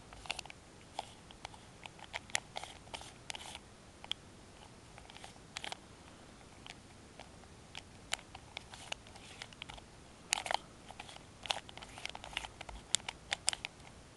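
Plastic clicking and clacking of a cheap 3x3x3 Rubik's-type cube being turned by hand, in quick, irregular bunches of turns with short pauses between.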